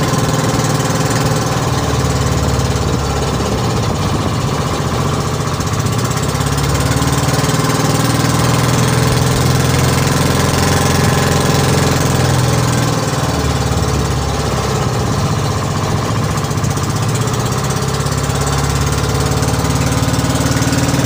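Inboard engine of an outrigger fishing boat (bangka) running steadily as the boat travels under way.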